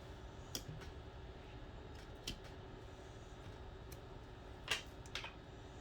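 A few faint, sharp clicks and taps from small tools and phone parts being handled at a repair bench, the loudest about three-quarters of the way through, over a low steady hum.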